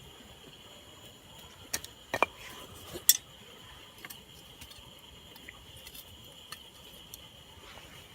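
A few sharp clicks and clinks over a steady high-pitched hum. The loudest comes about three seconds in.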